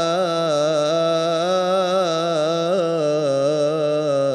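A man's solo voice singing an Islamic devotional ibtihal, holding one long, unbroken melismatic line whose pitch wavers up and down in small ornaments.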